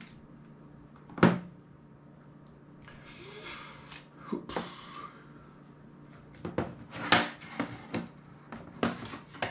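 Clicks and taps of small tools and a plastic precision-screwdriver bit case being handled on a tabletop as a bit is fitted into the screwdriver. There is a sharp knock about a second in, a short scrape around three seconds, and a cluster of clicks near the end.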